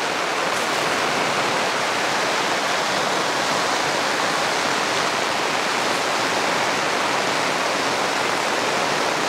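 Heavy rain pouring steadily onto a fabric pop-up canopy, with water streaming off its edges: an even, unbroken downpour with no let-up.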